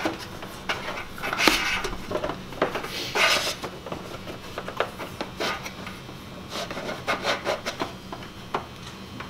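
Hands rubbing and scraping as gauge wiring is worked through a car's engine bay, with scattered light clicks and two louder scraping rubs in the first few seconds.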